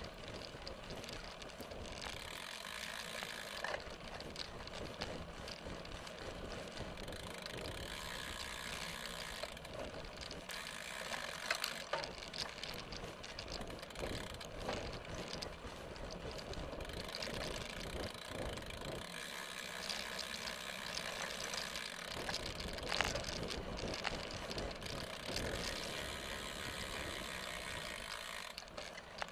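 Mountain bike rolling over a rocky dirt trail: a steady rattle of the bike and its tyres on gravel, with the freewheel hub ratcheting as it coasts and now and then a sharp knock from a bump.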